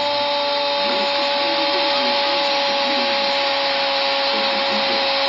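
Commentator's long, drawn-out 'gol' shout: one held note sinking slowly, over a cheering stadium crowd.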